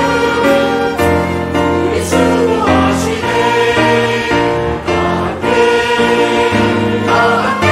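Mixed church choir of men and women singing a Korean choral anthem in sustained chords, accompanied by violin, cello and keyboard. Near the end the voice parts echo each other on the words "da hamkke" ("all together").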